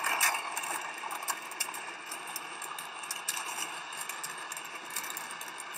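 A fireworks market's stock going off in a chain explosion: a dense, continuous crackle of fireworks bursting, with sharp bangs scattered through it. The loudest bangs come right at the start.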